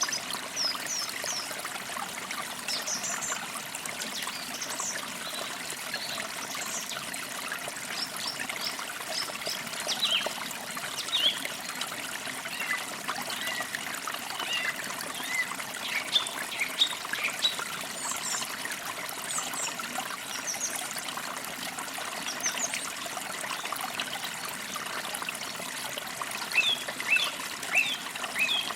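Forest creek trickling steadily, with birds chirping throughout in short, high, quick calls.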